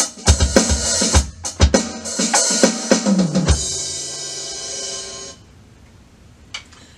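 Alesis Command mesh electronic drum kit played through its acoustic kit preset: a busy beat of kick and snare hits. Then a cymbal crash rings for about two seconds and cuts off suddenly, followed by a single faint tap.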